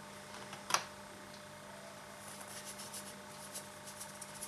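A metal teaspoon scooping salt from a plastic bag and tipping it into a plastic bowl of flour: a single sharp click about a second in, then faint light scraping and rustling.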